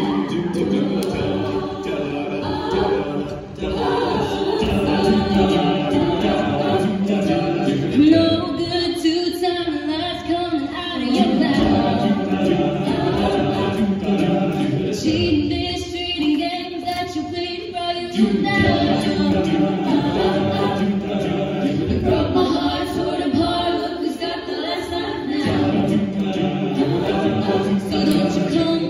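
An a cappella group of boys and girls singing in harmony into handheld microphones, their voices amplified.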